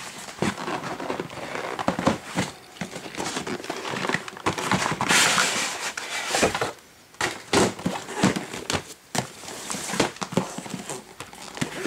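Cardboard motherboard retail box being handled and opened: the inner box slides out of its printed sleeve with scattered knocks, taps and rustling of cardboard, and a longer scraping slide about five seconds in.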